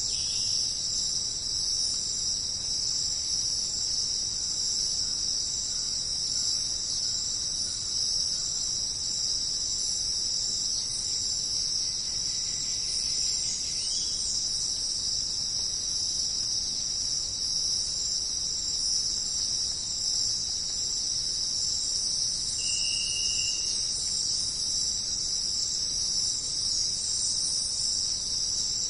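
Steady, high-pitched chorus of insects, shrilling without pause, with one brief short call standing out about three quarters of the way through.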